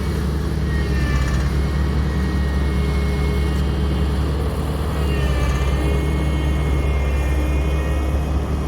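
Heavy road-construction machine's diesel engine running steadily, with a deep, constant low drone.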